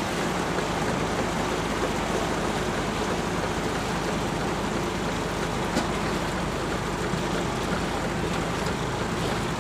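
Small passenger launch's engine running steadily, with water and wind noise around the open deck.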